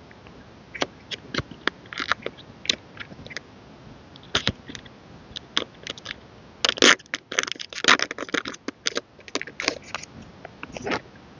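Album packaging being handled and unwrapped by hand: irregular crinkling and crackling of plastic and paper with sharp clicks and taps, busiest a little past the middle.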